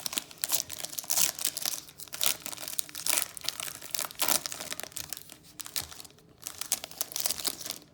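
Foil wrapper of a Pokémon TCG booster pack crinkling and tearing as it is worked open by hand, a stiff wrapper that is hard to open, in a dense run of irregular crackles that thins out near the end.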